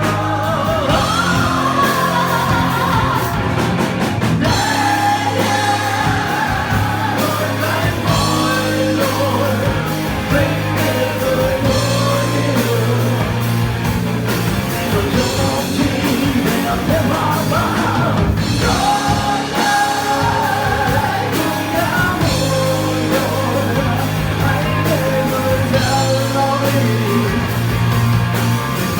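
Rock song with a sung lead vocal over guitar and a steady band accompaniment.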